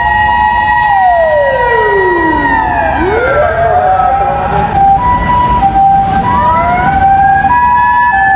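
Japanese emergency-vehicle sirens. A steady siren wail winds down in pitch over a couple of seconds and spins back up, the run-down and run-up of a mechanical motor siren. Then a two-tone "pee-po" ambulance siren alternates between a high and a low pitch, while a second siren rises and holds a steady wail, over a low engine rumble.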